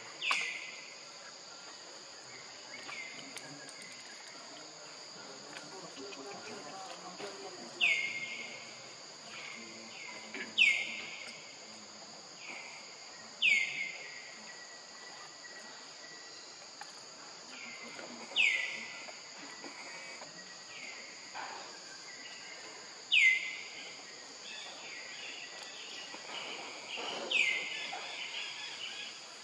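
A steady high-pitched insect drone, over which a short sharp animal call repeats every three to five seconds, about seven loud calls and several fainter ones.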